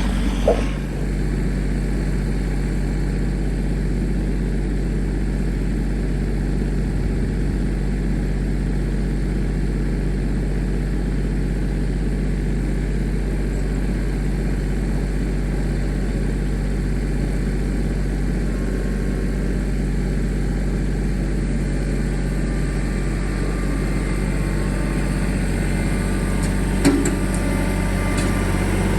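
Tractor engine running steadily at idle, an even low drone, with a brief knock just after the start and another near the end.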